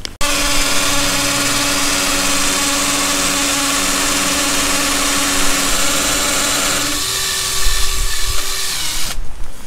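Bosch cordless drill running continuously as it bores a hole into a brick wall. Its motor tone steps up slightly about seven seconds in, and it stops about nine seconds in.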